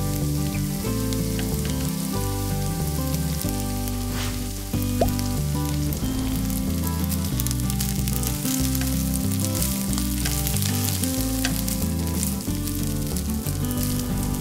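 Diced bacon and calabresa sausage sizzling in a nonstick frying pan as cooked rice is stirred in with a spatula. The crackle and spitting get busier in the second half, with background music underneath.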